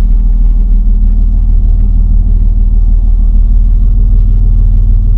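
Dodge Dakota pickup's V6 engine idling with a steady, loud low rumble, heard from inside the cab.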